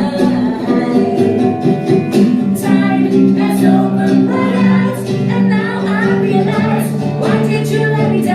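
Live rock band playing, with held female vocal notes over guitar and drums.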